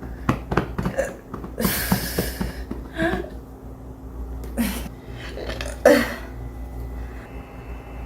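Several short throat sounds from a person, with small clicks and a brief hiss about two seconds in; the loudest throat sound comes near six seconds.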